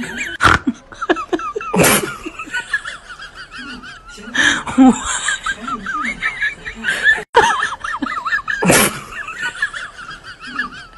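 Dubbed comedy laughter sound effects, high and warbling, running throughout, with several sudden loud hits laid over them.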